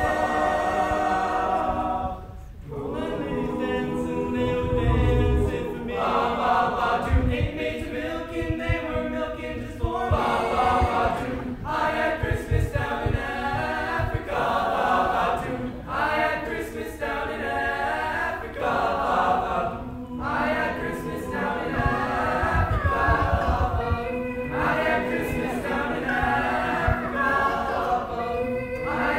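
A choir of teenage boys singing a cappella, many voices together without instruments, with a short break about two seconds in.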